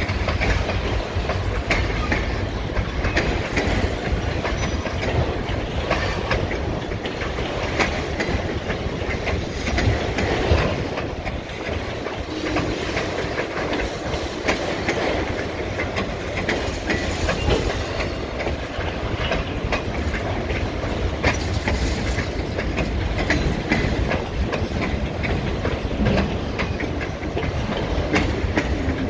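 Freight cars rolling past close by: steady rolling noise of steel wheels on rail, with repeated clicks and clanks as the wheels cross rail joints.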